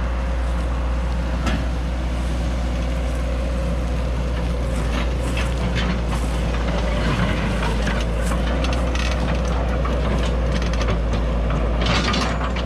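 A heavy engine running steadily with a low drone, with scattered cracks and knocks over it, one at about a second and a half and a dense cluster near the end.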